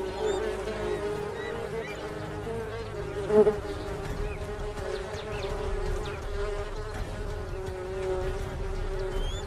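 Hornets buzzing in a swarm around their paper nest, a steady drone, with one short louder sound about three and a half seconds in.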